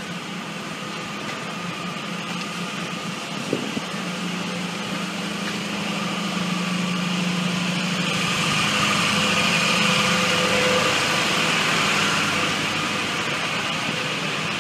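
Engines of parked FDNY ambulances and fire apparatus idling, a steady hum that grows louder toward a peak about ten seconds in and then eases. A short knock comes about three and a half seconds in.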